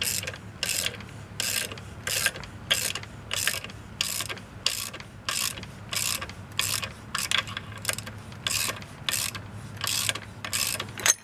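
A ratchet wrench turning the bolt of a homemade oil pump puller, drawing the oil pump out of a VW Type 1 engine case. It goes in a steady rhythm of short clicking strokes, about three every two seconds.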